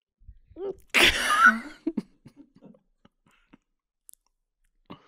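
A short, sudden, breathy vocal outburst about a second in, then faint clicking mouth noises.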